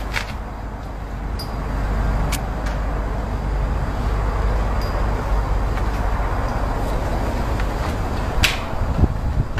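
Kenworth truck's 16-litre diesel engine running with a steady low rumble, growing louder a second or two in and then holding. Near the end there is a sharp click and a knock.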